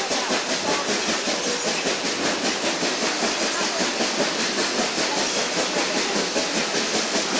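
Small steam locomotive running along the track with a quick, even beat of exhaust chuffs and a steady hiss, over the rumble and clatter of wheels on rail heard from the car behind it. No whistle sounds.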